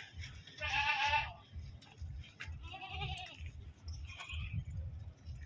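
Sirohi goats bleating: one loud quavering bleat about a second in, then two fainter bleats around three and four seconds, over a low pulsing rumble.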